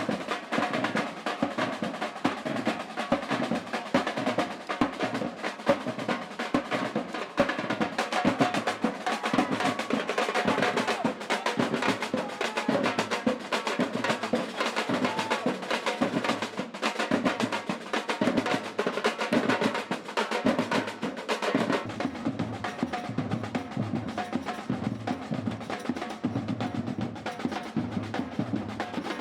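Batucada percussion ensemble playing a fast, dense drum rhythm with snare-like rolls and sharp wood-block-like strikes. About two-thirds of the way through, the sound of the drums changes, with less of the crisp top end.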